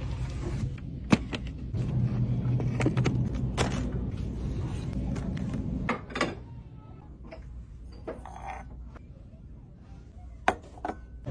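Clicks and knocks of store products being picked up and handled, over a steady low hum. About six seconds in it turns quieter, with scattered light clicks and one sharp tap near the end.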